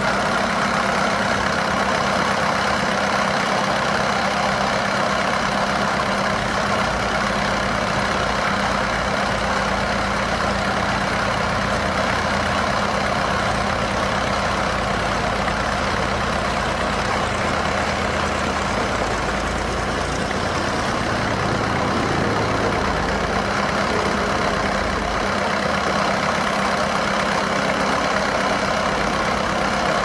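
Engine-driven portable band sawmill running steadily, its band blade cutting through a large log.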